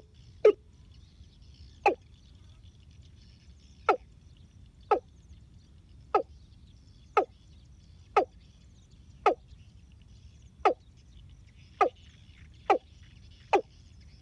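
Decoy hen field fowl (gà đồng) giving a short, sharp call over and over, about once a second, with faint high chirping behind it.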